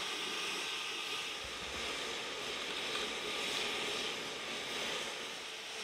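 Steam locomotives standing in steam, giving off a steady hiss.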